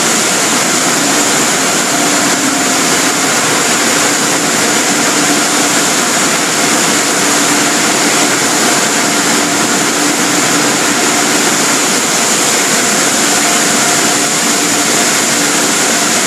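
Automatic car wash tunnel machinery running: a loud, steady rush of air blowers and water spray, with a faint high whine and a lower hum running through it.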